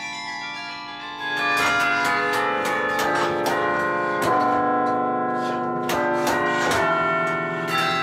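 A 49-bell carillon played from its baton keyboard: a melody of struck bells whose long ringing tones overlap and blend. The playing grows louder and busier about a second in.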